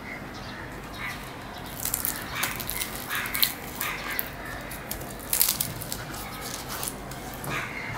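Crisp, deep-fried luchi being torn apart by hand over a steel plate: bursts of crackling and rustling, loudest a few seconds in.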